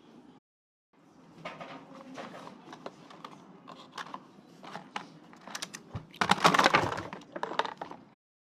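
Small packages and bottles being handled: a run of sharp clicks and plastic or cardboard crinkling, with a louder rustling burst about six seconds in.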